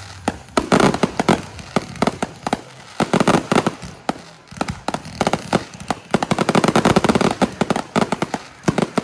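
Fireworks going off in rapid strings of sharp pops and crackles that come in several loud clusters, the longest running from about six to seven and a half seconds in.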